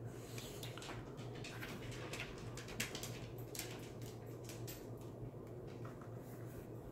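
Handling noise from a white plastic Vivint Glance control panel turned over in the hands: fingers rubbing and gripping the casing in an irregular string of small scratches and clicks, over a steady low hum.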